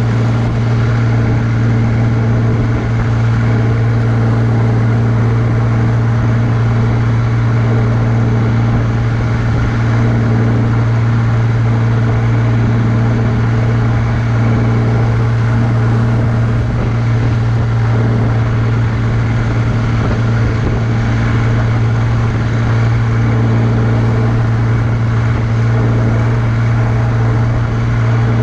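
John Deere 3140 tractor's six-cylinder diesel engine running steadily under load at road speed, a strong, even low hum with no change in pitch.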